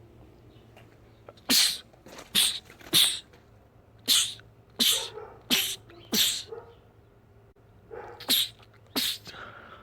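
A man sneezing in a rapid fit: nine sharp, loud sneezes, three then four in quick succession, then two more after a pause of about two seconds.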